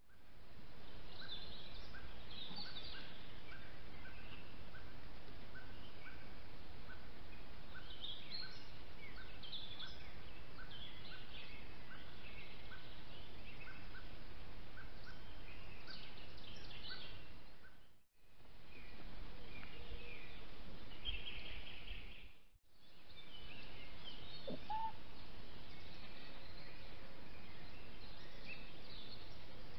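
Wild songbirds singing and calling over a steady hiss from a trail camera's microphone. Through the first half a short note repeats about twice a second. The sound cuts out twice, briefly, where one camera clip ends and the next begins.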